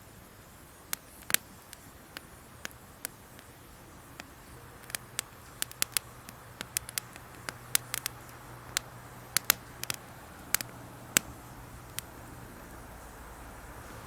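Wood campfire crackling: irregular sharp pops and snaps, coming thick and fast in the middle, over a soft steady hiss.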